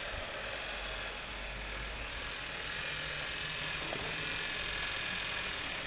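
Old washing-machine universal (brushed commutator) motor running steadily under closed-loop speed control, its speed holding constant even with the supply voltage cut to about 80 volts.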